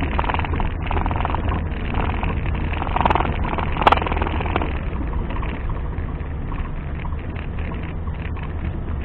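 Off-road 4x4 engine running with a steady low rumble that swells and eases. Two sharp knocks come about three and four seconds in, the second the louder.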